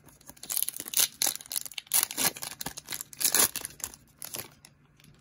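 A trading-card pack wrapper being torn open and crinkled: a series of loud crackling rustles lasting about four seconds, then stopping.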